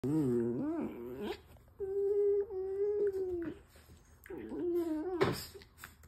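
A dog making three long, pitched vocal calls: a wavering one, then a steady held note, then a shorter one that rises and falls. A short noisy burst follows about five seconds in.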